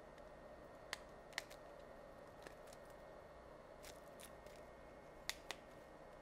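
Small plastic parts of a nano SIM adapter card being handled: a scattering of short, sharp clicks and snaps, a pair of louder ones about five seconds in, over faint room hum.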